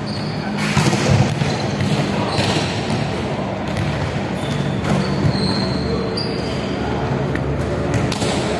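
Several people's voices echoing in a large indoor sports hall, with the thuds of a ball being struck and bouncing on the wooden court a few times.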